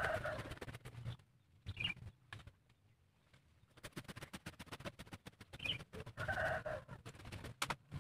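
A machete hacking again and again into the roots and soil at the base of a waru (sea hibiscus) tree, digging it out, in clusters of sharp strikes. A bird calls a few times over it.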